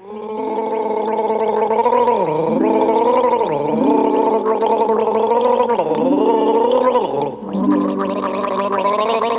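Background music: long, wavering lead tones that dip and swoop in pitch, over steady held low notes that change in steps. The music breaks off briefly about seven seconds in, then resumes.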